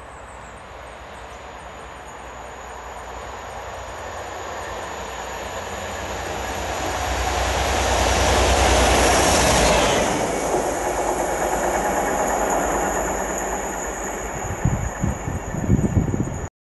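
Class 57/3 diesel locomotive running light engine, its EMD two-stroke V12 growing steadily louder as it approaches, passing about nine to ten seconds in, then receding. Near the end, irregular low buffets of air hit the microphone.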